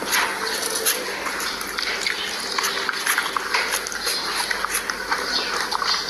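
A dog eating cooked rice from a plastic basin: wet mouth and chewing sounds with many quick small clicks.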